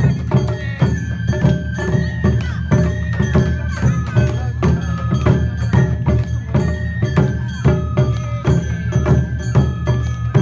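Awa odori festival music played live: a high melody line stepping in pitch over a steady beat of drums and percussion, about two strokes a second.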